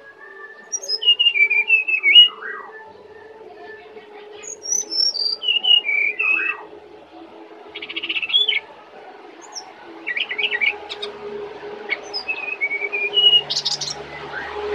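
Brown-chested jungle flycatcher singing: about five short phrases of quick whistled notes, some sliding up high, with pauses between them, over a faint steady hum.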